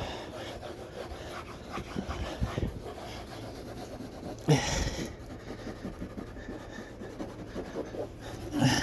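Towel scrubbed hard back and forth over a refrigerator door to work off stains, with a person breathing hard. A short louder sound comes about four and a half seconds in, and another near the end.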